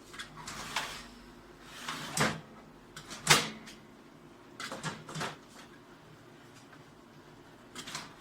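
Parts of a Toshiba 2303A photocopier being handled: about five separate clunks and sliding knocks, the loudest about three seconds in and a sharp one right at the end.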